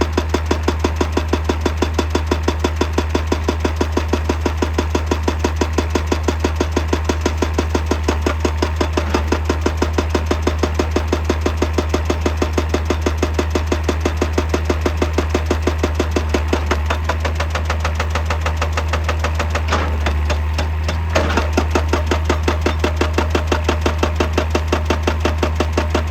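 Excavator-mounted hydraulic breaker hammering rock in a steady rapid rhythm, about four blows a second, over the excavator's running diesel engine. The blows weaken and break up for a few seconds about three-quarters of the way through, then resume.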